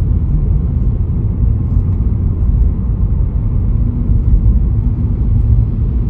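Car driving at a steady speed, with a low, even rumble of engine and road noise.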